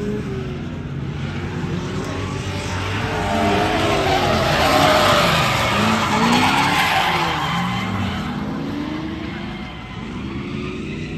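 A car driven hard on a track, its engine revving up and down again and again while its tyres squeal in a slide. The tyre noise and engine build to their loudest around the middle, then fade.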